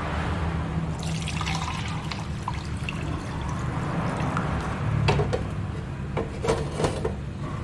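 A cooled, boiled herbal drink being poured through a strainer, the liquid splashing and trickling. A few sharp knocks come about five seconds in and again near the end.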